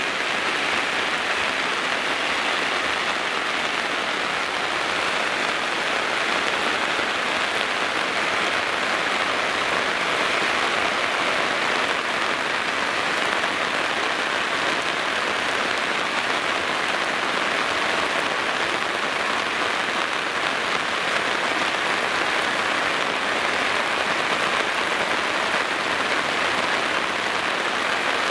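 Heavy downpour of rain: a steady, even rush that does not let up.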